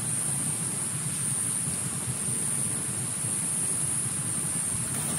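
Heavy rain falling steadily, an even rushing noise with a steady high hiss over it.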